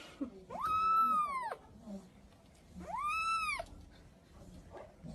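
A kitten meowing twice, a longer meow and then a shorter one, each rising and then falling in pitch.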